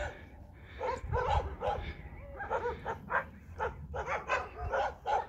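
A string of short, high-pitched animal calls, two or three a second, coming in irregular bouts.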